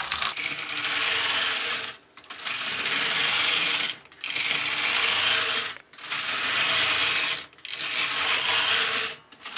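Brother KH260 knitting machine carriage pushed back and forth along the metal needle bed, knitting punch-card jacquard rows. Each pass is a steady, rasping metal rattle lasting about a second and a half, with a short break at each turn. Five passes come one after another, and a sixth starts near the end.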